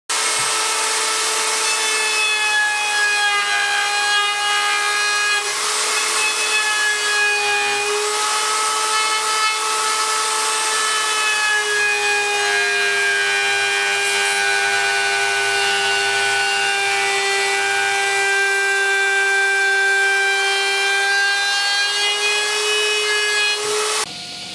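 Handheld wood router running a flush-trim bit along the edge of a wooden cabinet panel, trimming it to a taper: a steady high-pitched motor whine that dips slightly in pitch a few times as the bit takes the cut, then cuts off abruptly near the end.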